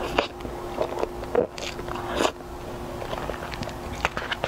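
Close-miked mouth sounds of eating soft cream-filled sponge cake: wet chewing and lip smacks with frequent small clicks, a few louder smacks among them.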